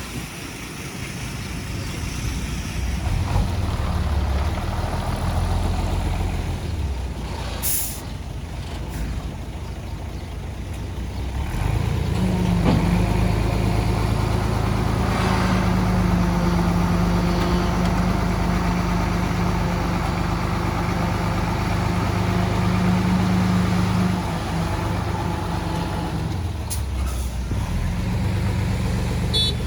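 Heavy diesel engines of a dump truck and bulldozer running. The engine note climbs and holds a steady drone under load through the middle, and there is one short, sharp air-brake hiss about a quarter of the way in.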